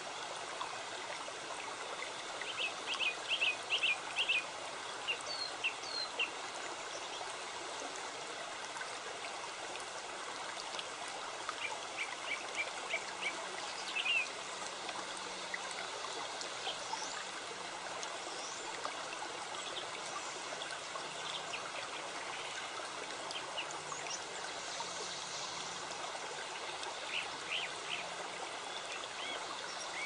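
Steady rush of a running creek, with small birds chirping over it: clusters of quick high chirps a few seconds in, again around the middle, and near the end.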